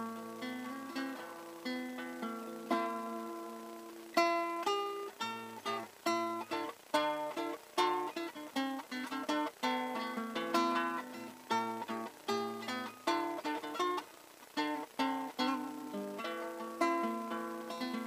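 Solo classical guitar played fingerstyle: a melody of plucked single notes and chords, each note struck cleanly and left to ring, with a brief lull about fourteen seconds in.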